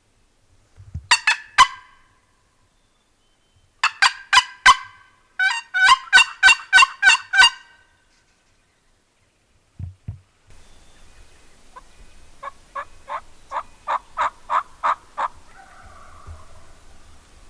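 Turkey yelping in runs of sharp, evenly spaced notes, with three runs in the first half. After a break near the middle, a longer run of about nine notes grows louder.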